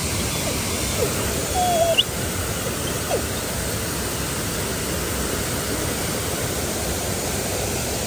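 Steady rush of a waterfall pouring into a pool. A few faint, brief squeaks come through about one to three seconds in.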